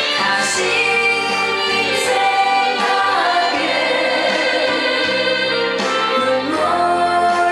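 A singer performing a song live over amplified backing music.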